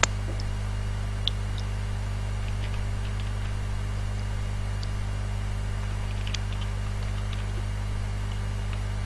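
Steady low electrical hum from a microphone or audio line, with faint hiss and a few faint, brief clicks.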